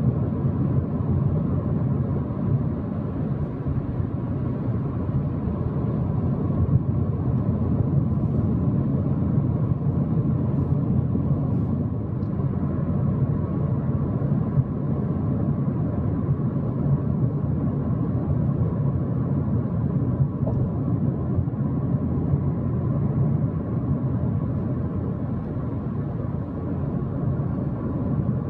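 Steady road noise of a car driving at highway speed: an even rumble of tyres and engine that holds at one level throughout, with a faint steady hum on top.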